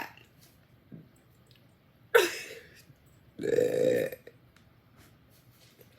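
A woman burping loudly twice: a short burp about two seconds in whose pitch drops as it fades, then a longer, lower burp at about three and a half seconds that lasts close to a second. The end of an earlier burp dies away at the very start.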